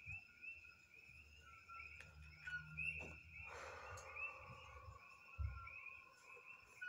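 Faint night chorus of small calling animals, short high chirps repeating a few times a second. A soft rustle a little past halfway, as cards are handled on a cloth.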